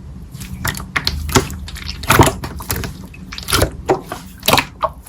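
Slime being squished and pressed by hand, giving irregular sticky clicks and squelches, about two a second.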